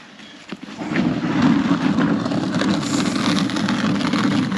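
A long scraping slide across frozen pond ice, starting suddenly about a second in with a loud, steady rushing scrape.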